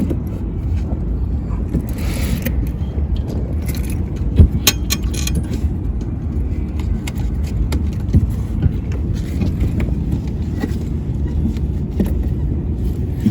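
Steady low rumble throughout, with a cluster of sharp metallic clicks and rattles about four to five seconds in, from a boat seat's mounting hardware and straps being handled.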